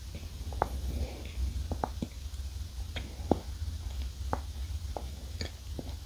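Close-miked chewing of a mouthful of soft, marshmallow-filled Choco Pie cake with closed lips: scattered wet mouth clicks, about one or two a second, over a steady low hum.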